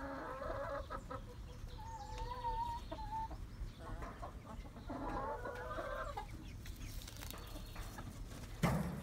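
A flock of young hens clucking and giving short calls, one of them a wavering call. A sudden loud thump near the end.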